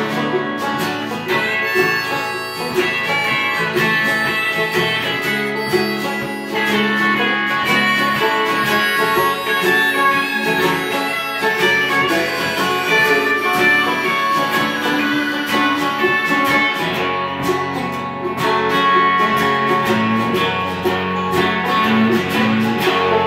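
Acoustic guitar and banjo playing a song together, with many quick plucked notes over steady chords.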